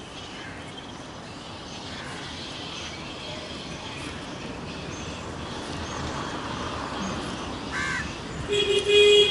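Crows cawing over a steady outdoor background, with a louder, short steady-pitched call near the end.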